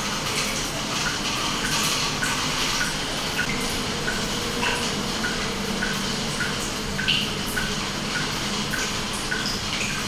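Steady hiss of water with a drop plinking about once every three-quarters of a second, as in a bubbling aquarium with water dripping into it.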